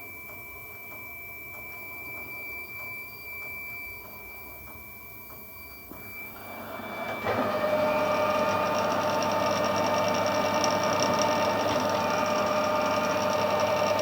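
Metal lathe running steadily, then about seven seconds in the tipped turning tool starts cutting the bolt and a much louder rough cutting noise with a steady whine sets in and holds.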